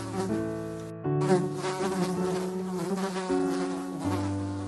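Honeybee buzzing: a steady drone of several held pitches that drops out for a moment about a second in, then shifts in pitch again near the end.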